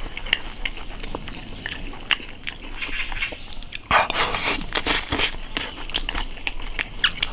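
A person eating close to the microphone: rice with cured pork and potato shoveled off a bowl's rim into the mouth with chopsticks, with a loud slurping rush about four seconds in, and wet chewing with many small clicks between.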